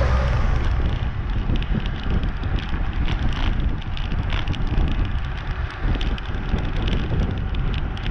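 Strong wind buffeting the microphone of a bike-mounted camera while cycling, a steady low rumble with many light ticks and rattles over it. A car passes close by at the very start.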